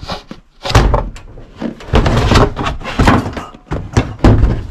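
A series of heavy thuds and knocks, about five in all, as objects are moved and set down onto a pile.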